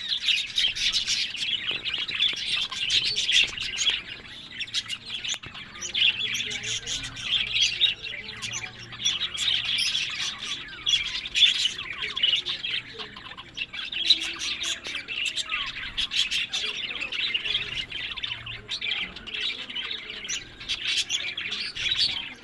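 Budgerigars chattering and warbling nonstop, a dense mix of quick high chirps and short squawks.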